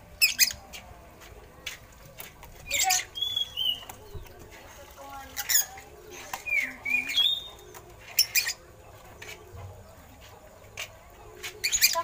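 Caged Oriental magpie-robin calling: loud, short, harsh rasping calls about every three seconds, with brief whistled slurred notes between them.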